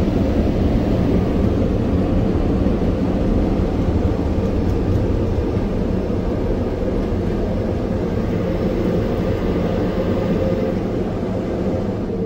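Car wash blower dryers running, a steady rush of air on the car heard from inside the cabin, easing slightly near the end.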